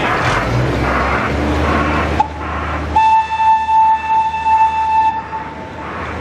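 Botchan Ressha replica locomotive's whistle: a short toot, then one long blast of about two seconds on a single steady pitch, after a low engine rumble and crowd murmur.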